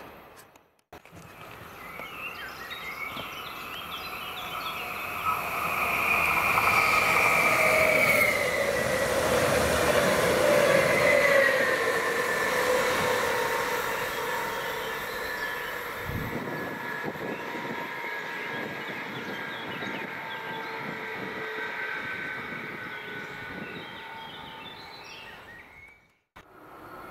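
Electric train passing by. It grows loud, with whining tones that slide down in pitch as it goes by, then fades slowly.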